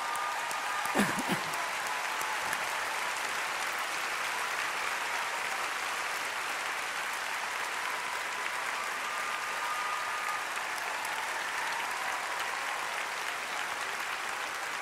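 A large audience applauding steadily, with a brief voice rising out of the clapping about a second in.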